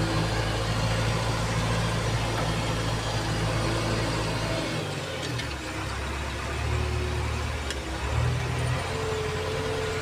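JCB 3DX backhoe loader's diesel engine running, heard from inside its cab as the machine drives; the engine note shifts about halfway through and again near the end.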